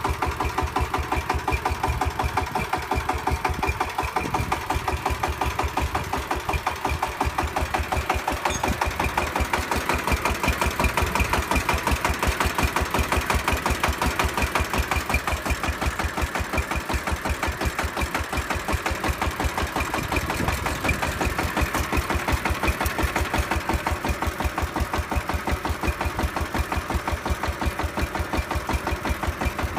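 Engine of a homemade miniature well-drilling rig chugging steadily at idle, an even, fast knocking like a small single-cylinder diesel.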